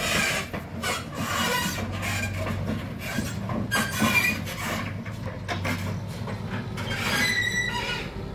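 Scania truck's diesel engine pulling a loaded 30-metre grain road train away slowly, with a steady low engine note, over repeated squeaks and creaks from the heavy trailers as they move. A longer squeal comes near the end.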